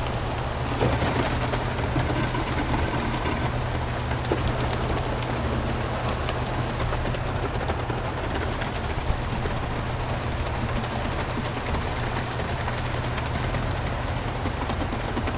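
A vehicle or machine running steadily, a constant engine hum under an even rushing noise, with a few faint clicks.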